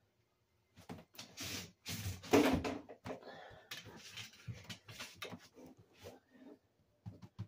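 Irregular scraping, rustling and knocking of a hand and arm working inside a floor vent duct, loudest about two and a half seconds in.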